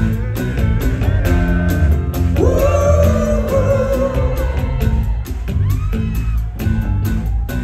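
Rock band playing live in a large hall: a steady bass and drum groove with regular beats, and a held, wavering voice rising over it about two and a half seconds in.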